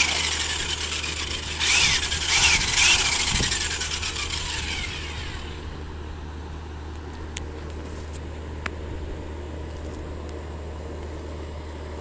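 Corded electric drill spinning a painted canvas, triggered in several short bursts in the first few seconds with its whine rising and falling, then spinning down and fading out by about six seconds in. A steady low hum with a few faint clicks remains.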